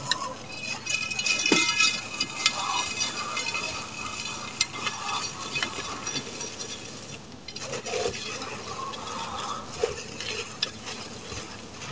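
Dry, gritty sand-cement lumps crumbled between the hands, the grit and small stones pouring and falling into a clay pot: a dense, crunchy crackle made of many small ticks.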